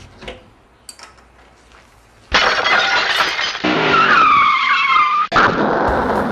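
Car tyre-skid sound effect: a sudden loud rush with squealing, wavering tones, cut off about three seconds later by a second loud burst like a crash.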